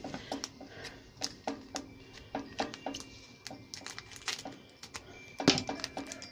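Crinkling and rustling of a foil Pokémon booster-pack wrapper being handled and cut open with scissors, a run of short crackles with a louder crinkle about five and a half seconds in.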